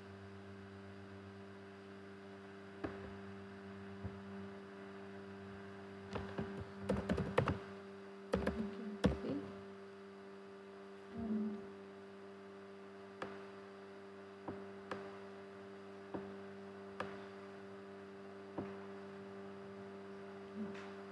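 Computer keyboard typing in a short flurry about six to nine seconds in, with scattered single clicks before and after, over a steady electrical hum.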